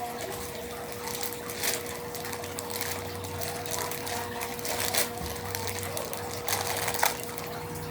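Irregular rustling and crinkling of a toy's plastic packaging being handled and opened, over a steady background hum.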